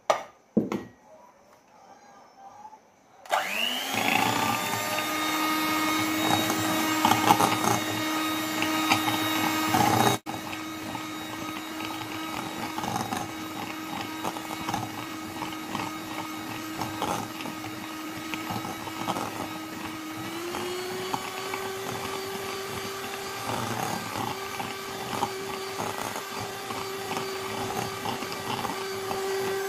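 Kirin electric hand mixer starting up with a rising whine about three seconds in, then running steadily as its beaters cream butter and sugar in a glass bowl, with light ticks of the beaters against the glass. It briefly cuts out about ten seconds in and goes on a little quieter, and its pitch steps up slightly about two-thirds of the way through. Two brief knocks come before the mixer starts.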